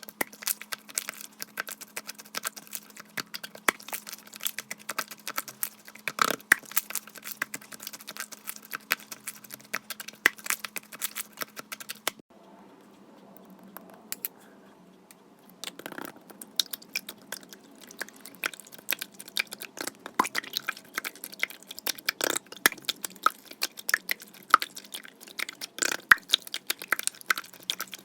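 Slime being squished and pressed by hand, a dense run of small sticky clicks and crackles. It drops away briefly about twelve seconds in, then resumes.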